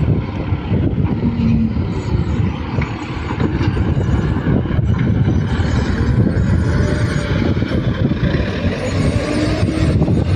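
Caterpillar 950B wheel loader's diesel engine running hard and steady, working under load as the loader pushes sand with its bucket, puffing black exhaust smoke.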